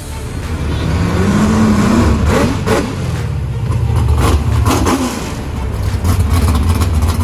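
Ford 408 Cleveland stroker V8 of a 1969 Mercury Cougar drag car running over a steady low rumble, revved twice with the engine note rising and falling each time.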